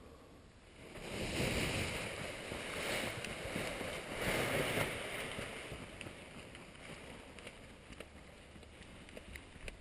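Wind rushing over the microphone, rising about a second in, surging again around four to five seconds, then easing off.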